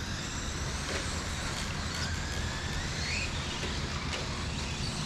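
Distant radio-controlled electric stadium trucks racing: faint motor whines rising and falling in pitch over steady background noise.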